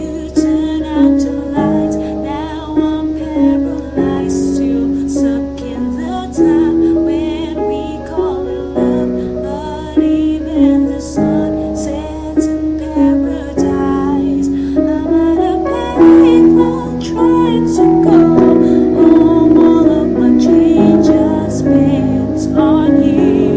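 A woman singing a pop song over piano accompaniment, held notes with vibrato over struck chords.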